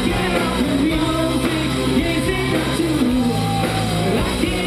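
Rock band playing live with a singer's voice over sustained bass and guitar.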